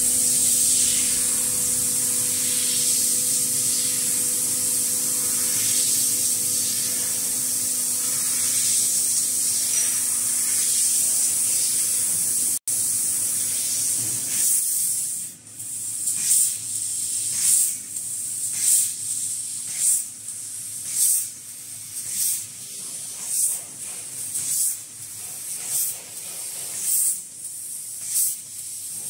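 CNC laser cutter cutting sheet metal: the cutting head gives a loud, steady hiss over a machine hum. From about halfway on, the hiss comes in short regular surges, about one a second.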